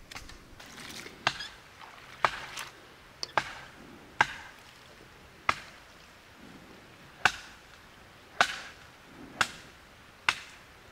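A series of sharp chopping blows, about ten of them, irregularly spaced roughly a second apart.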